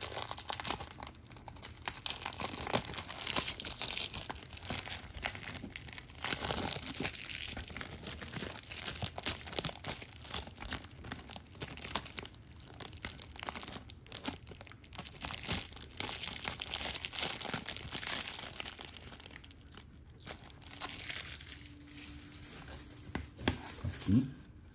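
Plastic wrapping on a CD digipack crinkling and tearing as it is pulled off by hand, a dense run of crackles that thins out in the last few seconds.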